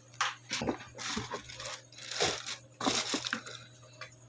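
Several short crinkling, tearing rasps of tape being peeled and handled.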